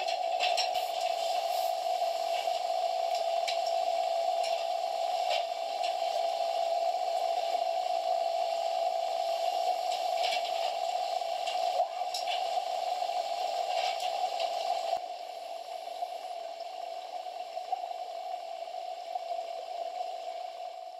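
Underwater ambience in a swimming pool, heard through the camera: a steady hum under a hiss, with scattered clicks and bubbling. It drops quieter about three quarters of the way through and cuts off at the end.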